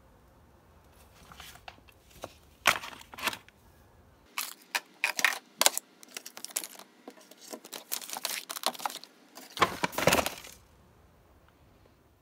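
Packaged groceries being set onto a shelf: plastic food pouches crinkling and a tin can and cardboard boxes clinking and knocking, in a series of short rustles and clunks with brief pauses between.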